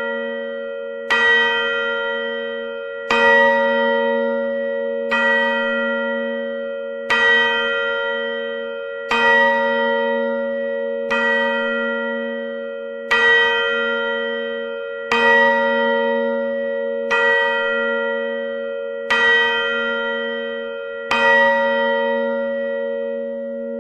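Large clock bell striking midnight: single strokes about two seconds apart, eleven in all, each ringing on and slowly fading while a low hum carries through between strokes.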